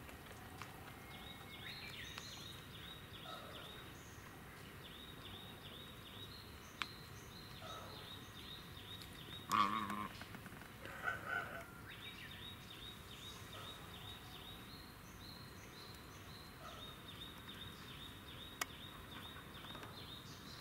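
Domestic waterfowl calling: one loud call about halfway through, followed a second later by two shorter calls. Behind it, high rapid chirping repeats in runs of a few seconds.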